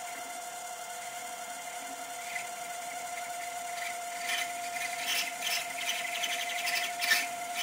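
DIY micro lathe built from a CNC rotary axis turning a brass rod, its drive giving a steady whine. From about four seconds in, the cutting tool scrapes and rasps in uneven bursts as it shaves down the rod's uneven threaded part.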